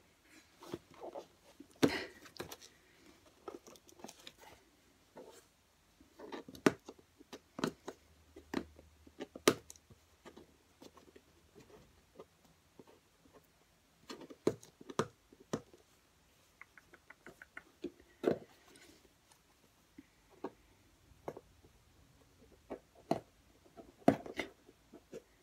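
A small cardboard box being picked and pried open by hand: irregular scratching, crackling and small knocks with short pauses between them.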